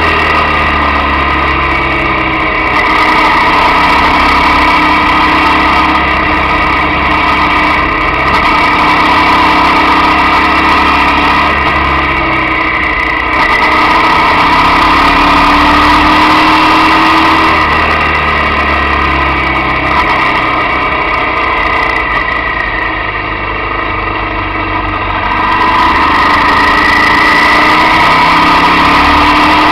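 Motorcycle engine running while riding, its pitch rising and falling as the throttle is opened and closed through bends; it eases off for a few seconds about three-quarters through, then picks up again.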